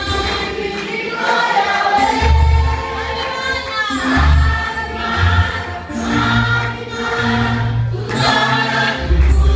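Church congregation singing a worship song together in chorus, with low bass notes sounding beneath the voices.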